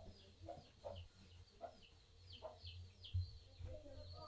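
Chickens clucking faintly, with short, high, falling peeps repeating about twice a second.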